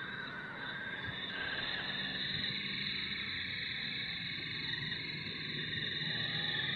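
MN82 RC Land Cruiser's electric drive motor and gearbox whining steadily as the truck drives across wet sand.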